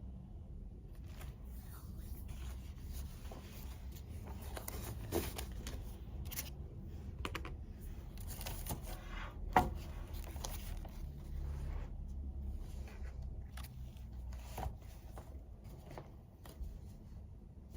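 Pen scratching on paper in irregular strokes, with small paper rustles and a few sharper taps, the loudest about nine and a half seconds in.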